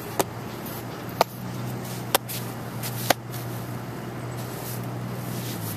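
Four sharp smacks about a second apart, a leather baseball glove being struck, over a steady low hum.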